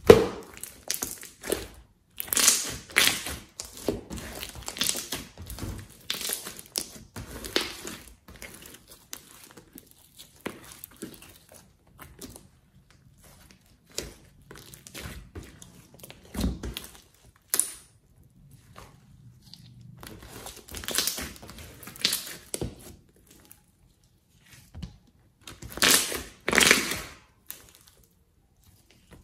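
Glossy slime being stretched, pulled apart and squeezed by hand, giving irregular clusters of small sticky crackles. The crackles are sparser for a stretch in the middle and loudest about two seconds in and again near the end.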